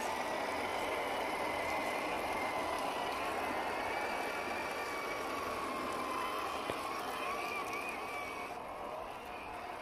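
A 1/10-scale RC crawler's 550-size electric motor and geartrain whine as it churns through thick mud, wavering in pitch with the throttle. The whine fades a little near the end as the crawler pulls away.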